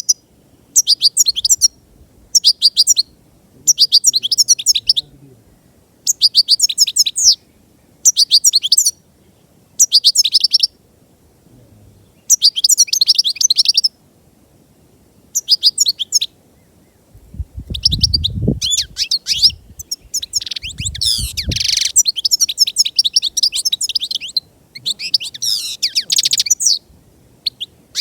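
European goldfinch singing: bursts of rapid twittering notes about a second long, repeated with short pauses, then longer, denser stretches of twittering in the second half. A low rumble sounds under the song around the middle.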